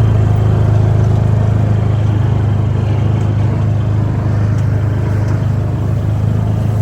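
Vehicle engine running at a steady pace while driving, a constant low hum.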